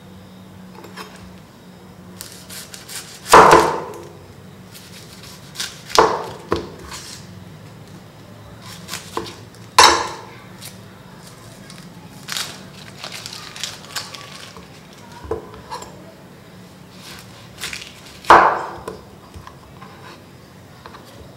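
Damascus chef's knife cutting a red onion on a wooden cutting board: four loud, sharp knocks of the blade hitting the board, several seconds apart, with lighter taps and soft handling of the onion between.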